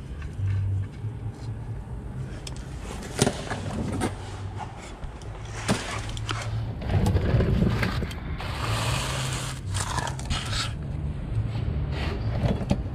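Tools and parts being handled during hand work on the truck: scattered clicks and knocks, and a few seconds of rustling hiss a little past the middle.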